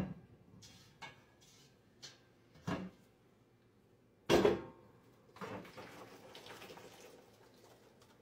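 Metal pot and stainless steel colander knocking against a steel kitchen sink while blanched green beans are drained. There is a sharp clank at the start, a few light taps, a louder clank about four seconds in, then a faint hiss for a couple of seconds.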